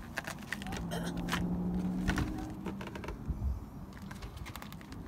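Vinyl mobile-home skirting panel clicking and knocking as it is worked by hand down into its bottom track: a run of irregular light clicks. A low steady hum sounds under it for about two seconds in the middle.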